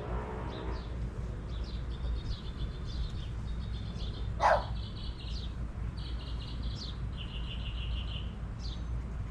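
Small songbirds chirping and giving repeated short trills. A dog barks once, loudly, about four and a half seconds in, over a steady low background rumble.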